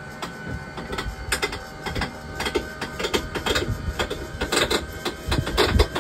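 Sea Ray 275 Sundancer's engine hatch lifting open: a steady motor whir with irregular clicks and creaks throughout.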